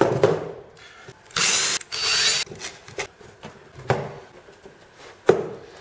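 Cordless drill running in two short bursts about a second and a half in, drilling stitch holes through plywood kayak panels. Around them come a few sharp clicks and knocks from pliers and copper stitching wire being handled on the plywood.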